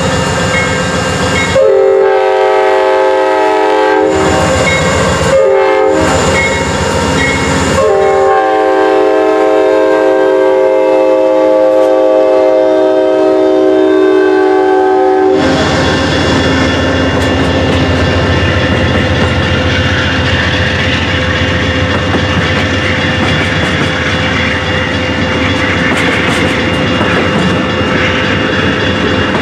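Amtrak GE P42DC diesel locomotive passing close by, sounding its multi-chime horn in several blasts that end in one long blast held for about seven seconds. After the horn stops, the passenger cars roll past with a steady rumble of wheels on rail.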